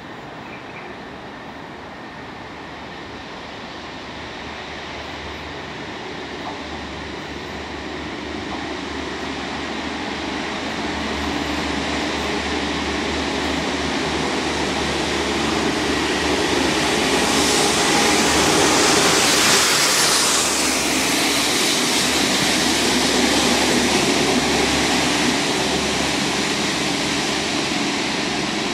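Network Rail MPV railhead treatment train approaching and running through at speed: diesel engine and wheels on the rails, growing steadily louder. As it passes, about two-thirds in, a loud hiss of its high-pressure water jets blasting the rails peaks, and the hiss and rumble then ease a little as it draws away.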